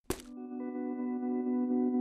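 Logo intro music: a sharp hit at the start, then a sustained ringing chord of several steady tones that slowly swells in loudness.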